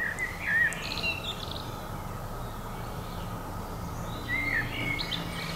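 A songbird singing in short phrases of quick chirps: one phrase at the start and another about four seconds in.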